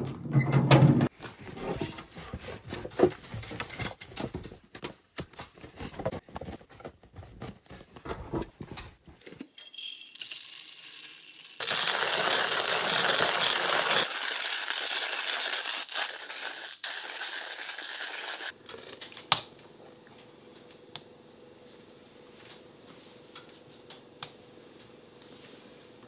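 Clatter and knocks of a wheelbarrow tipping compost over wooden planks, then, about halfway through, a hand-cranked coffee grinder grinding beans for a few seconds. After that there is quiet room tone with a few faint clicks.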